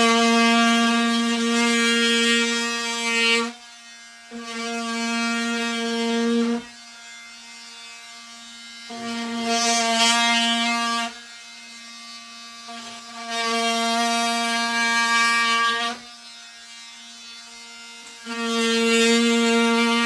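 Cordless oscillating multi-tool cutting into drywall: a steady high buzz that gets louder in five stretches of two to three seconds as the blade bites into the wall, and quieter between them.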